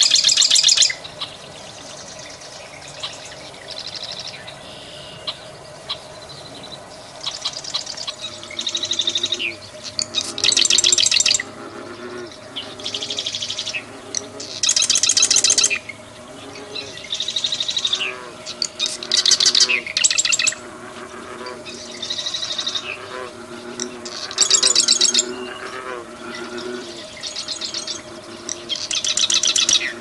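Marsh wren singing: song after song every two to four seconds, each a few short notes leading into a rapid, rattling trill of about a second.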